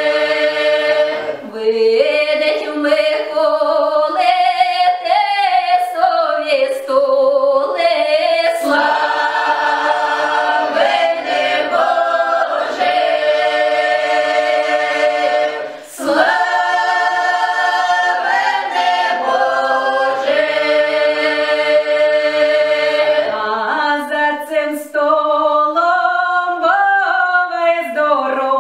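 Mixed choir of women's and men's voices singing a Ukrainian Christmas carol (koliadka) in folk style, in sustained chords, with short breaks between phrases about a second and a half in and about halfway through.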